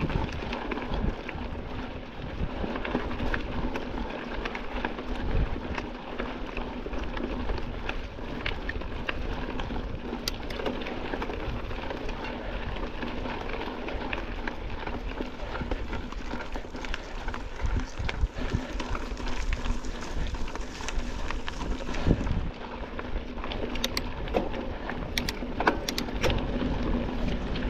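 Mountain bike riding over rough dirt and gravel: continuous tyre and wind noise with frequent short rattling clicks and knocks from the bike.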